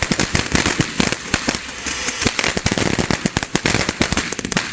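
TNT Fireworks Jackal fountain firework spraying, a dense rushing hiss thick with rapid crackling pops, which cuts off suddenly at the very end as the fountain burns out.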